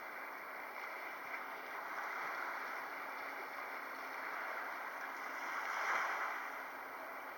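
Steady outdoor background hiss with no distinct events, swelling briefly about six seconds in.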